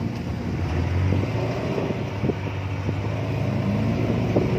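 Engine of a small open-top 4x4 jeep idling steadily, its pitch shifting slightly, with a few short knocks.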